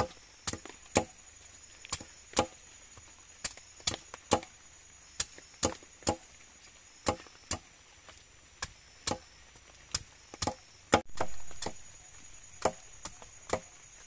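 Machete chopping the spiky husk off a durian: a run of short, sharp cuts at irregular spacing, roughly two a second, with one louder blow about eleven seconds in.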